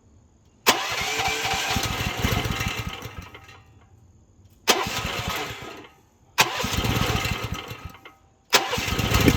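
The small gasoline engine of a Rippa Mule Trac mini excavator is started four times. Each time it catches abruptly, runs for a second or three and fades out as it dies. It will not stay running, which the owner puts down to low compression or a knockoff carburetor that can't be tuned, with air in the fuel line.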